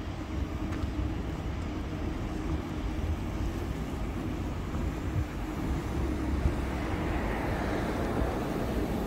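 Steady low rumble of city traffic, with one vehicle's noise swelling as it passes about two-thirds of the way through.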